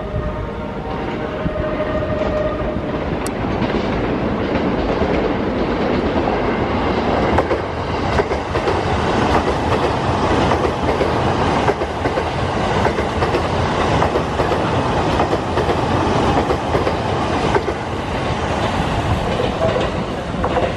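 JR East E353 series limited express electric train running past at close range, its wheels rumbling and clacking over the track in a steady run of knocks. A short whine is heard near the start.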